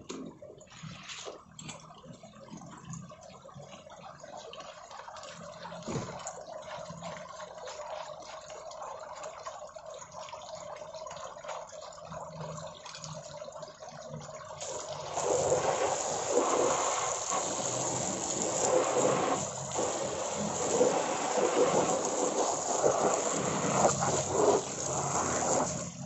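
Water from a garden hose sprayed over a birdcage to bathe the bird, a loud steady splashing hiss that starts a little past halfway; before it, quieter trickling water.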